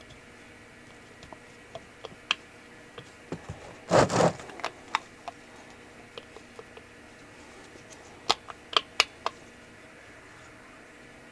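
Scattered metal clicks and taps of hand tools and parts as an oil drain plug is fiddled into an engine case, with a louder short scraping rustle about four seconds in and a quick run of clicks near the end.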